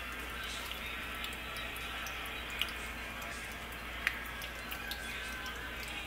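Battered green-bean bundles frying in hot oil in a skillet: a steady sizzle and crackle, with two sharper pops about two and a half and four seconds in.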